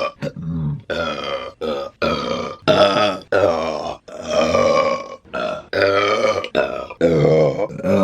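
A woman burping: a rapid string of about a dozen short belches, each with a clear pitch and under a second long, following one after another with only brief gaps.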